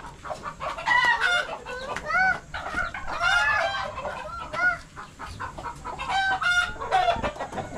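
Chickens clucking: many short calls from several birds, overlapping and continuing throughout.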